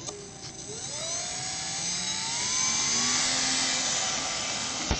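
RC model Cessna's electric motor and propeller throttling up from standstill for its takeoff roll: a whine that rises in pitch and grows louder over the first couple of seconds, then holds high and steady. A short knock sounds just before the end.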